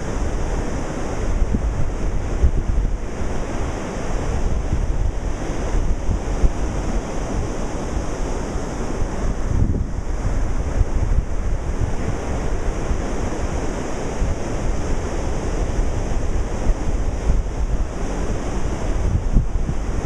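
Ocean waves washing in steady, continuous surf, with wind rumbling on the microphone.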